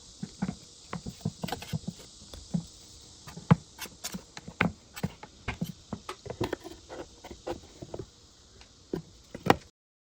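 A metal 5-in-1 tool prying at the nailed-on shoe form of an old shoeshine box: irregular clicks, taps and knocks, with a sharp knock near the end before the sound stops abruptly.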